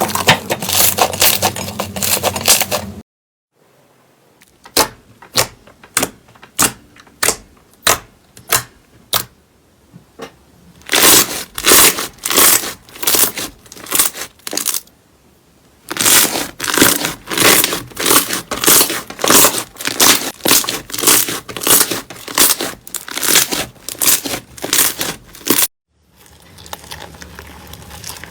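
Slime being squeezed, poked and pressed close to the microphone, making crackling, popping and crunching sounds. It comes as a few separate clips with short silent breaks: dense crackling, then a run of sharp pops about two a second, then loud crackly squishes in steady rhythmic handfuls, ending on a quieter crackle.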